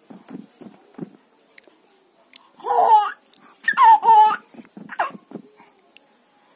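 Baby babbling and laughing: a few soft short sounds, then two loud high-pitched happy cries about two and a half and four seconds in, and a shorter one near five seconds.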